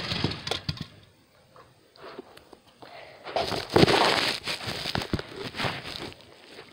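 Handling noise on a phone's microphone: a few clicks, then loud rubbing and knocking as the phone is swung and moved about.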